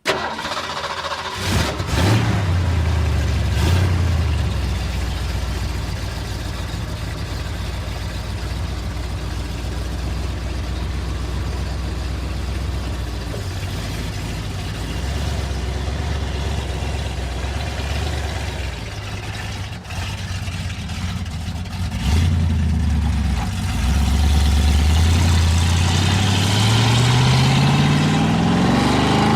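Ford Mustang engine starting about two seconds in and settling into a low idle with a couple of short throttle blips. It gets louder about two-thirds of the way through, then its pitch climbs steadily near the end as it revs up and accelerates.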